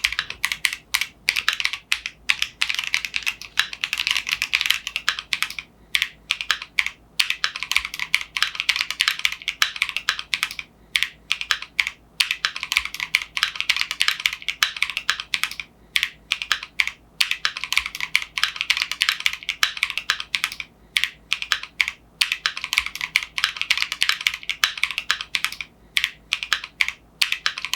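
Mechanical keyboard typing on a Keychron Q1 Pro fitted with Keychron K Pro Banana tactile switches: a fast, continuous run of key clacks with a few brief pauses.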